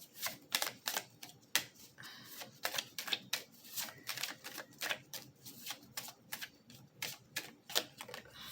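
A deck of cards being shuffled by hand, an irregular run of sharp card snaps and taps, about three or four a second.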